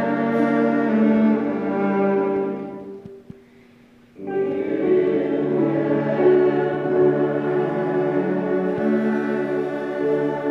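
Church chancel choir singing an anthem in sustained chords with instrumental accompaniment. The music fades to a brief pause about three seconds in and comes back in full about a second later.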